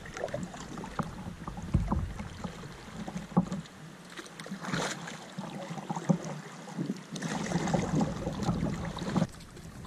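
Kayak paddle strokes, the blades dipping and splashing in river water at an irregular pace, busiest in the second half.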